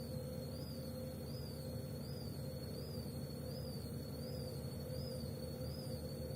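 Drive belt of a Gorenje W98F65I/I washing machine whistling while the machine runs: a high squeal that wavers up and down in pitch about once every three-quarters of a second, over a steady running hum. The squeal is a belt fault on a machine only eight months in service.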